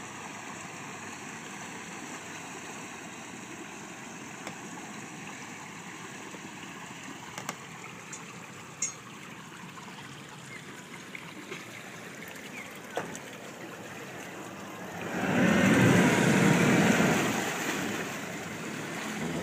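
Twin Yamaha outboard motors on a power catamaran running at low speed over lapping water. About fifteen seconds in there is a loud rush of churning water and engine noise for about three seconds as the propellers throw up white water, then it fades.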